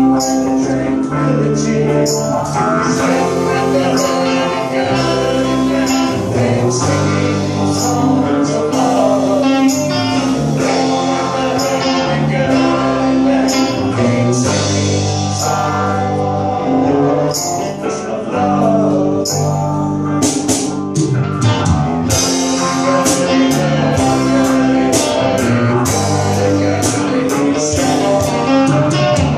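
Live rock band playing: electric guitars, bass guitar and drums, with a male lead vocal. Drum and cymbal hits are sparse at first and grow much busier about two-thirds of the way through.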